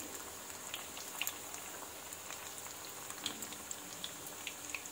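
Vegetable Manchurian balls deep-frying in hot oil: a steady sizzle with many small scattered crackles and pops.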